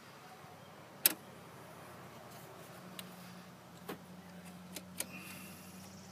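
A handful of short, sharp metallic clicks as the accelerator cable's end fitting and adjuster are handled and tightened by hand, the loudest about a second in, over a low steady hum.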